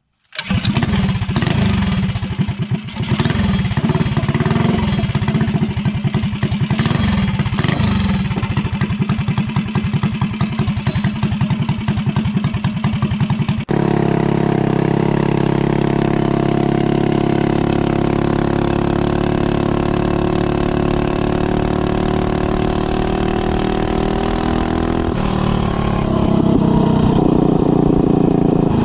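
Mega Moto minibike's small single-cylinder engine, still on its break-in oil, running on a test ride. Its speed rises and falls unevenly through the first half, then after an abrupt change about halfway through it holds a steady note, shifting pitch again near the end.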